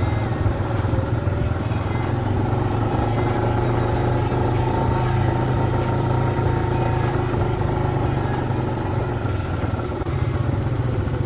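Quad bike (ATV) engine running steadily as it is ridden along a trail, with road and wind noise.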